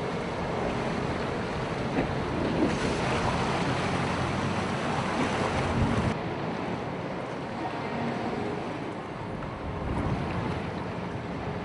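Wind rushing over the microphone aboard a small boat, with water splashing against the hull and the boat's motor running underneath; the rush swells for about three seconds in the middle.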